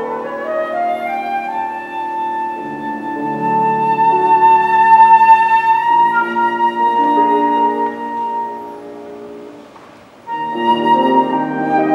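Flute and grand piano playing a slow, lyrical piece: the flute rises to a long held high note over sustained piano chords. The music fades to a short hush about ten seconds in, then flute and piano come back in together.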